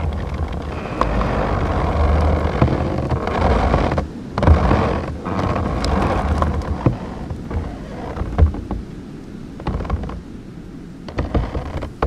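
An oak tree creaking and popping in blizzard winds, recorded through a hole in its trunk: gusting wind noise with a deep rumble, broken by sharp pops and knocks from the wood. The strongest surge comes about four seconds in.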